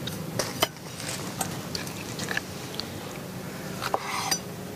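Chef's knife slicing a cleaned squid tube into rings on a wooden cutting board: a series of short, irregular knocks as the blade cuts through and meets the board.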